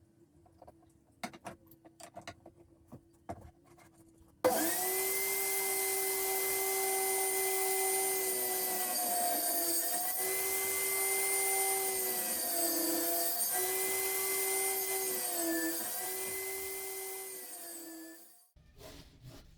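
Light taps and handling clicks, then an electric woodworking power tool starts suddenly and runs steadily for about fourteen seconds, its pitch sagging briefly every second or two as it is loaded, before it winds down and stops.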